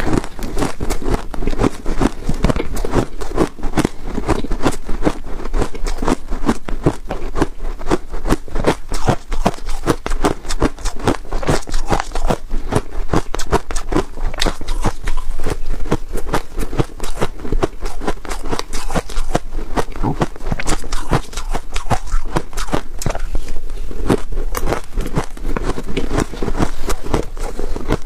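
Freezer frost being bitten and chewed: continuous crunching made of many crisp crackles in quick succession.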